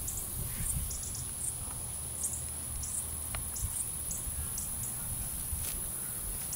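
Faint scattered ticks and rustles in the grass as a nine-banded armadillo roots for food, over a steady low rumble and a steady high-pitched whine.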